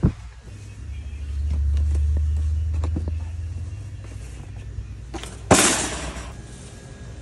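Wire shopping cart handling: a low rumble for the first few seconds, then one loud clattering crash about five and a half seconds in as a box of trash bags is dropped into the metal cart.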